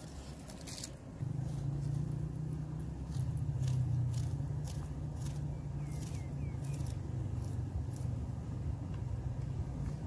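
A low, steady rumble that starts about a second in and holds, with small sharp clicks of a knife cutting a red onion over a plastic bowl.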